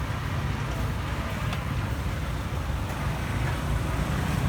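Street ambience: a steady low rumble of traffic with faint voices in the background.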